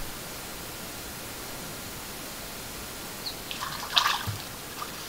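European otter splashing in a shallow stream: a brief burst of splashing about three and a half seconds in, loudest around four seconds in, over the steady hiss of a camera trap's microphone.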